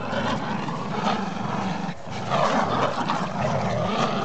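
Dogs growling steadily while pulling in a tug-of-war, with a short break about two seconds in.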